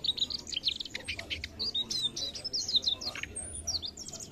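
Mugimaki flycatcher singing a fast, unbroken twitter of short high notes that slide up and down.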